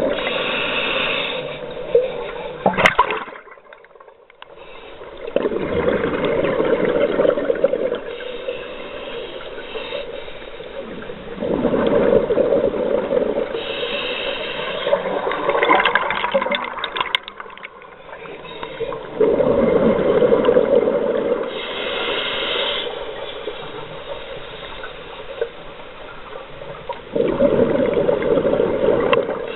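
Scuba regulator breathing underwater: exhaled air bubbles out in loud, rushing, gurgling surges about every seven seconds, with a quieter hiss from the regulator in between.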